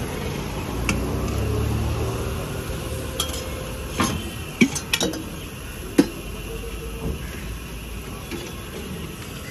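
Steel spoon and utensils clinking against a steel pot at a dosa griddle: a few sharp metallic clinks between about four and six seconds in, over a low steady rumble.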